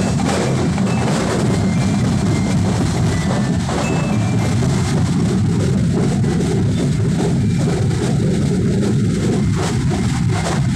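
Loud, continuous street drumming with a dense percussive beat, the kind of drum band that plays at a Santo Niño street festival.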